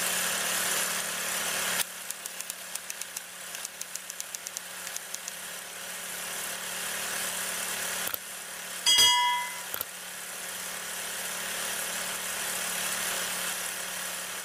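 Old film-projector sound effect: a steady hiss over a low hum, with a run of quick clicks, about six a second, from about two to five seconds in. About nine seconds in, a short, bright notification-bell chime rings.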